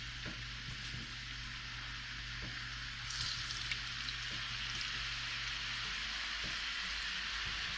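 Seasoned chicken sizzling in hot oil in a frying pan, a steady hiss that grows louder about three seconds in.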